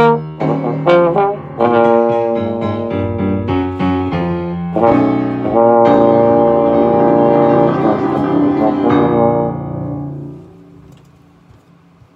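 Tenor trombone playing a jazz line in hard-bop style: a run of short, quick notes, then long held notes that end in a final note fading out about ten seconds in.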